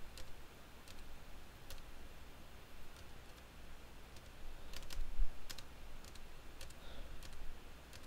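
Computer keyboard keys pressed one at a time, scattered single clicks with a quick pair about five seconds in, as the selection is stepped through a file list. A low thump just after the pair is the loudest sound.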